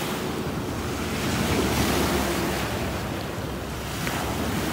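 Small waves washing onto a pebble shore, swelling to a louder surge about halfway, with wind rumbling on the microphone.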